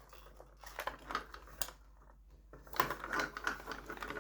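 Hands handling plastic toy packaging: irregular clicks and crinkles, with a brief pause about two seconds in and then a quicker run of clicks near the end.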